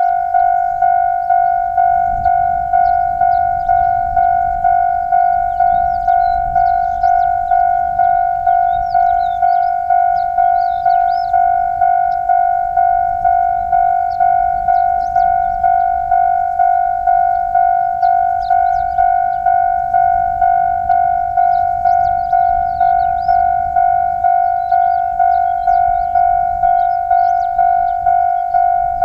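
Japanese level-crossing warning bell ringing continuously, an evenly repeated ringing tone at a little under two strokes a second, each stroke fading before the next. Faint high chirps sound over it.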